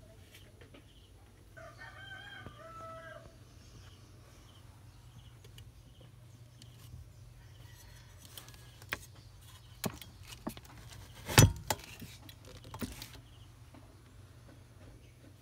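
A rooster crows once, a call of about a second and a half starting nearly two seconds in, over a steady low hum. Later come scattered clicks and knocks, the loudest a sharp knock a little after eleven seconds.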